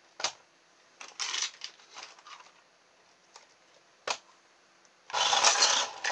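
A few knocks and clicks as a toy RC car is handled and set down on the bench. About five seconds in comes a short, loud burst of whirring as its small electric motor drives it off across the mat; it is running on two LiPo cells in series.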